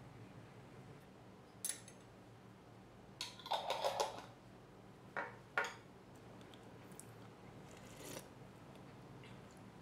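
Light clinks and taps of kitchen utensils against a ceramic bowl as black garlic oil and toppings are added to a bowl of ramen: a single tap near two seconds in, a cluster of clinks around four seconds, and two more just after five seconds.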